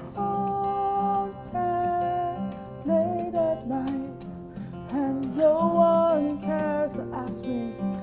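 Acoustic guitar played steadily under a woman's voice singing long held notes that slide up and down between pitches.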